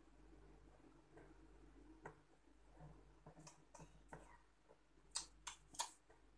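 Kitchen knife tapping and chopping on a plastic cutting board while cutting spring onions: a few faint ticks, then three sharper chops close together near the end.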